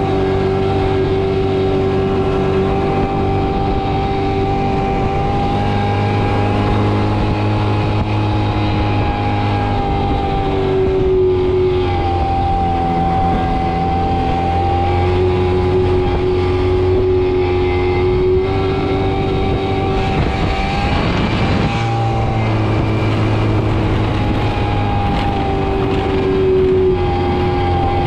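Motorbike engine running steadily under way, with road and wind noise. Its note dips and rises slightly several times.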